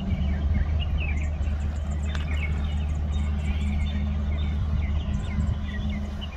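Small birds chirping in many short high calls over a steady low rumble that runs underneath throughout.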